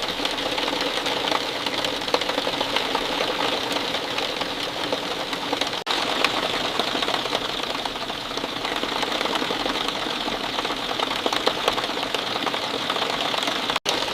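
Steady rainfall: a dense, even patter of many drops. It cuts out for an instant twice, about six seconds in and near the end.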